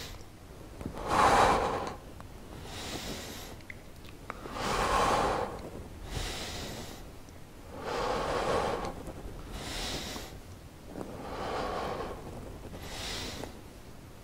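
A man breathing hard through a strenuous seated core exercise: a regular rhythm of loud exhales a few seconds apart, with quieter inhales between them.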